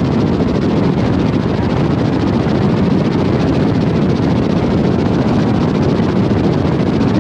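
Car driving through a road tunnel: steady tyre and engine noise.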